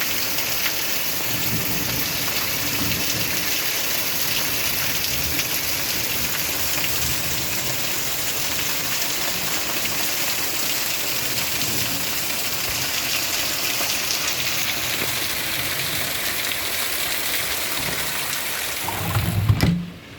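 Heavy rain falling steadily in a thunderstorm, a dense even hiss, with low rumbles of thunder now and then. Near the end a louder low rumble swells, and then the rain sound drops away suddenly.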